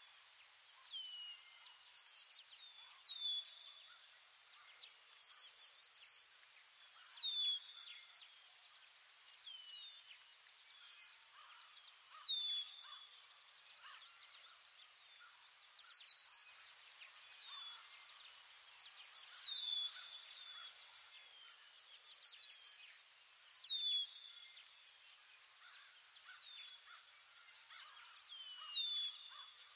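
Ambient forest soundscape: insects trill steadily in a high, rapidly pulsing drone, while a bird repeats short down-slurred chirps every second or two, often in pairs.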